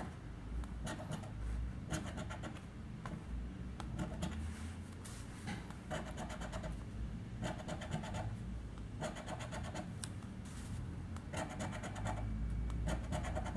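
A coin scraping the latex coating off a paper scratch card, in quick bursts of back-and-forth strokes with short pauses between them.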